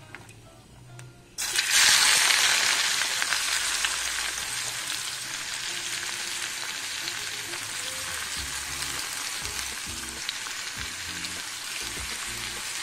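Sliced onions dropped into hot oil in a clay pot, sizzling. The sizzle starts suddenly about a second and a half in, loudest at first, then settles to a steady frying hiss.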